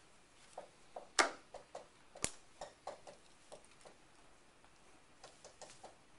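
Dry-erase marker squeaking and tapping against a whiteboard while writing: a string of short strokes, with two sharper taps about one and two seconds in.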